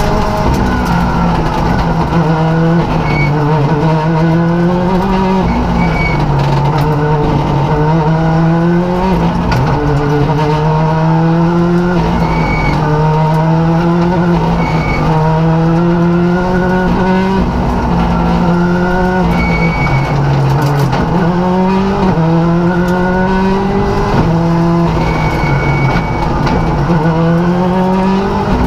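Rally car engine heard from inside the cockpit, driven hard: the pitch climbs steeply through each gear and drops at every shift and braking, over and over. A few short high chirps cut in now and then.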